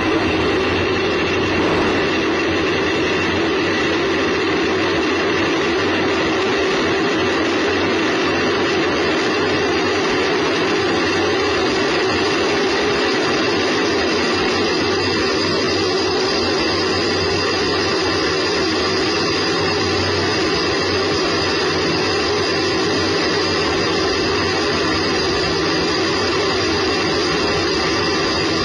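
Space Shuttle solid rocket booster burning during ascent, picked up by a camera mounted on the booster itself: a loud, steady, unbroken noise with a few constant tones running through it.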